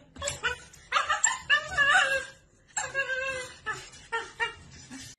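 A dog whimpering and yipping in short, wavering high-pitched cries, loudest about one to two seconds in, with a short break midway.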